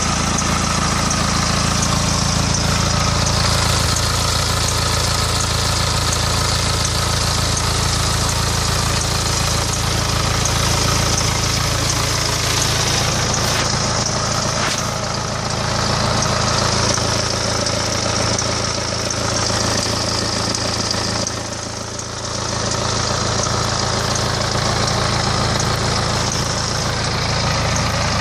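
BMW N47D20 2.0-litre four-cylinder diesel engine idling steadily with a ticking noise, which the owner suspects may be a timing chain problem. The sound dips briefly a little over three-quarters of the way through.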